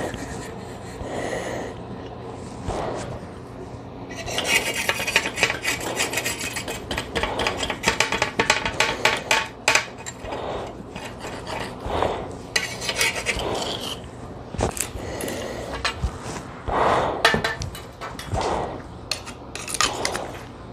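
Knife sawing through a mineral wool insulation batt, a dry rasping scrape. The strokes come fast and steady from about four seconds in for several seconds, then more scattered.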